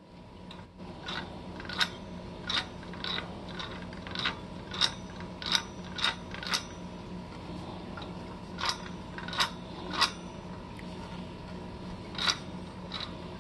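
A hand-cranked cast-iron label paster's roller of brass discs and its drive gear being turned, giving sharp metallic clicks and clinks at uneven intervals, in three runs with short pauses between.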